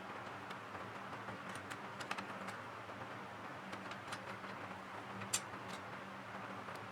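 Scattered light clicks and taps, with one sharper click about five seconds in, over a steady low hum and hiss.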